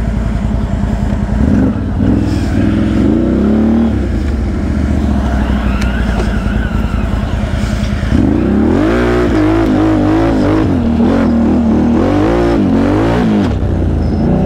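ATV engine running low, then revved in bursts: a short rise and fall about two seconds in, and a longer stretch of hard revving with a wavering pitch from about eight seconds in.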